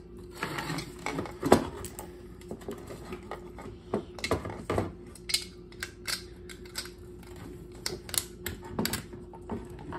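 Scattered clicks and light taps of small parts being handled and fitted onto the back of a headlight housing, as a metal ring is pressed onto the projector mount, over a steady faint hum.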